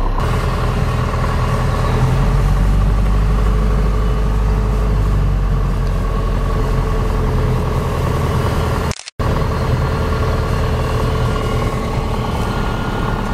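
Light aircraft's piston engine and propeller running at low taxi power, a steady drone heard from inside the cockpit. The sound cuts out for a moment about nine seconds in.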